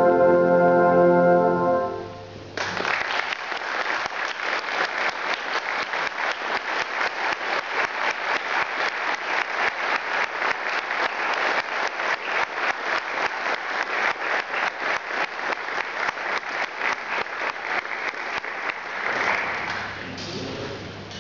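A brass band holds a final chord that stops about two seconds in. Applause then follows, dense clapping from the band and audience that dies down near the end.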